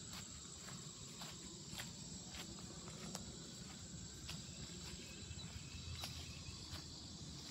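Faint footsteps on grass: soft, irregular ticks about every half second over quiet outdoor background.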